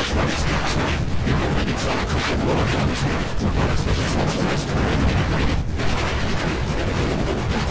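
The commercial's jingle soundtrack, heavily distorted and bass-boosted into a dense, crackling wall of noise with a heavy low end. No words can be made out.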